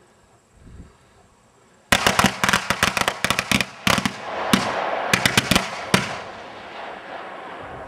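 Firecrackers going off in a cardboard box on the ground, pretty loud: a rapid, irregular string of sharp bangs starting about two seconds in and lasting about four seconds, then a fading hiss and crackle.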